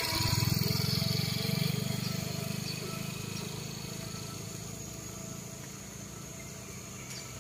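A passing motorcycle's engine rumbling low, loudest about a second in and fading away over the next few seconds.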